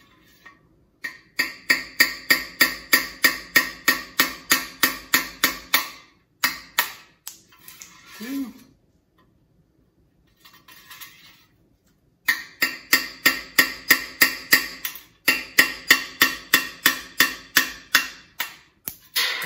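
Rapid ringing strikes, about four a second, as a 3/16-inch rod is rammed down the oil galley of a 327 small-block Chevy engine block to knock out the galley plug at the far end. The strikes come in two long runs with a pause between them.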